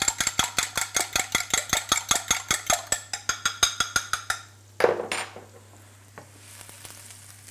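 Metal fork whisking eggs in a glass measuring jug: fast, even clicking strokes, about seven a second, that stop about four seconds in. A single knock follows, then faint sizzling from the frying pan on high heat.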